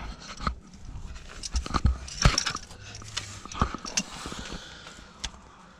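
Irregular clicks, knocks and scrapes of a metal ratchet and socket extension being handled under a car, mixed with camera handling noise. The loudest knocks come about two seconds in.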